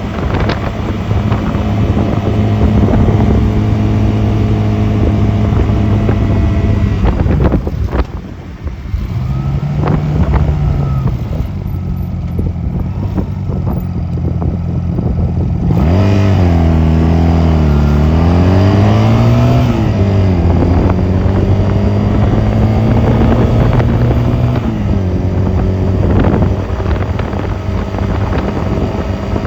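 Honda 250cc motorcycle engine running under way. It holds a steady cruise, eases off about a third of the way in, then rises and falls in pitch several times as the rider accelerates and shifts, before settling back to a steady cruise.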